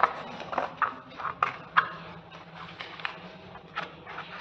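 Scissors cutting thin craft paper: a run of short, crisp snips, several in quick succession in the first two seconds, then a few more spaced out.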